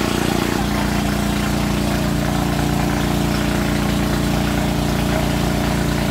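An engine idling steadily. Its sound shifts about half a second in, then holds an even, unchanging note.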